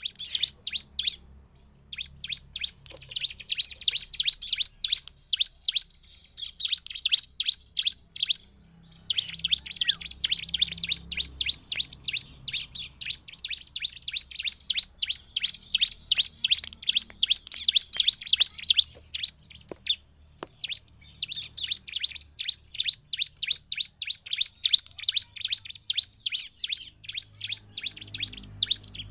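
Bar-winged prinia (ciblek) singing: long bouts of rapid, high chirps repeated many times a second, broken by a few short pauses.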